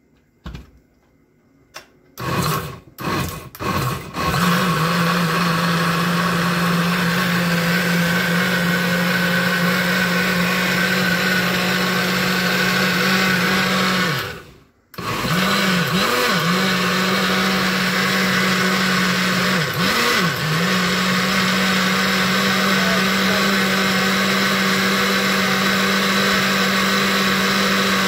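Countertop jug blender blending a cooked tomato sauce into a smooth paste: a few short bursts, then the motor runs steadily. About halfway it stops for under a second and restarts, its pitch dipping briefly twice soon after.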